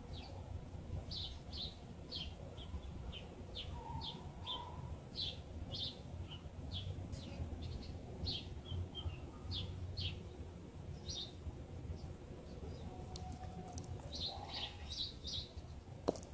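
Small birds chirping: short, high chirps repeating irregularly about once or twice a second, over a low steady rumble.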